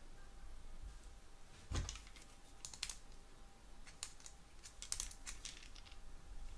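Small sharp clicks and taps of a folding knife's parts and a precision screwdriver being handled during reassembly, with a louder knock about two seconds in and quick runs of clicks after it.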